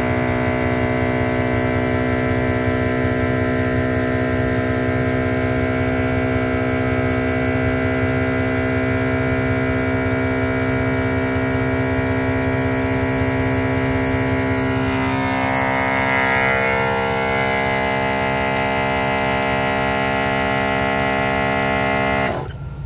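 MaxiTrac 300 LPM 12-volt air compressor running steadily as it pumps up a 4-gallon air tank, with a vehicle engine idling underneath. Near the end the compressor cuts off suddenly: the pressure switch has stopped it at 120 psi.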